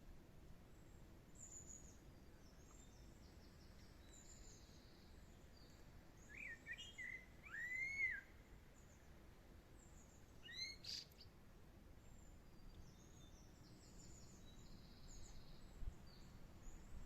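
Wild birds singing in woodland: faint high chirps throughout, with a louder run of gliding calls about six to eight seconds in and a short sharp call near eleven seconds, over a low steady background hum.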